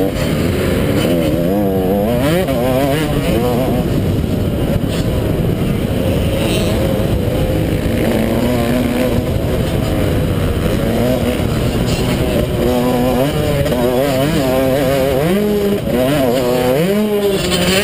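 250-class motocross bike's engine at racing speed, heard up close from the bike. It revs hard, its pitch climbing and dropping again and again as the rider accelerates, shifts and backs off over the jumps and turns.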